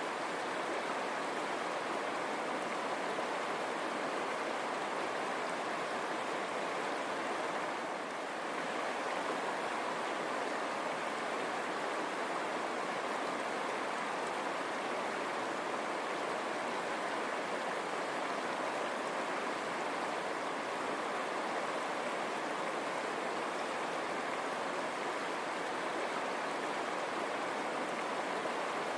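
River water running steadily over rocks: a continuous, even rushing.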